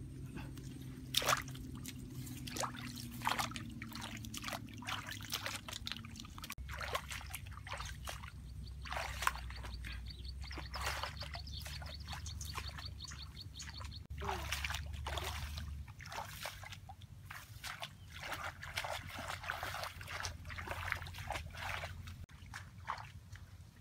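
Irregular rustling and crackling of tall wet grass as someone walks barefoot through it. A fine, fast, high ticking runs for several seconds in the middle.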